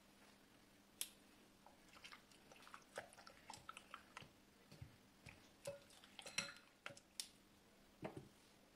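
Faint wet squishing of raw chicken fillets being tossed in an egg-and-soy marinade in a glass bowl, with light irregular clicks of metal tongs against the bowl.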